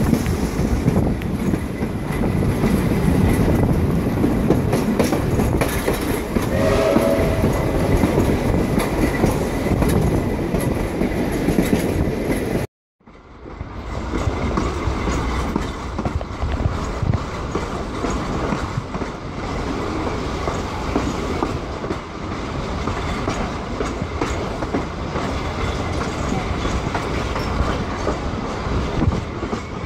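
Vintage steam-hauled passenger train running, heard from a carriage: a steady rolling rumble of wheels on the rails with clickety-clack over the joints. The sound drops out completely for a moment about thirteen seconds in, then the train noise resumes.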